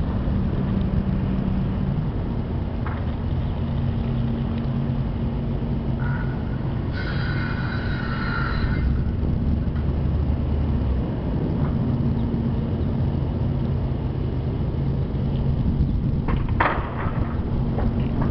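Box truck's engine running as it passes close by and drives slowly around the lot, a steady low rumble. There is a brief high squeal about seven seconds in, and a short flurry near the end as sparrows flush out of the brush.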